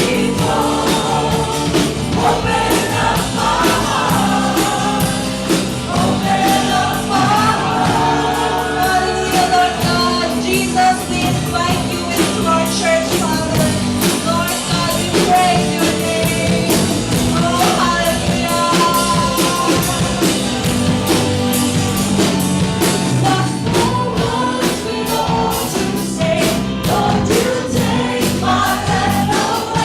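Live worship music: singers leading a praise song over a band with drums keeping a steady beat.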